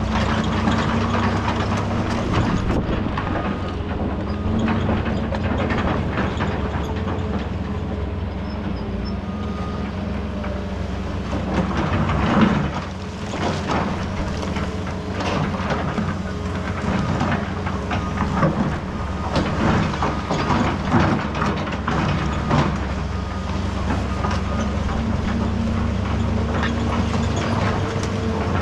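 Heavy diesel equipment running steadily under load, with repeated clanks, knocks and scrapes of broken concrete and steel being worked. The loudest bang comes about twelve seconds in.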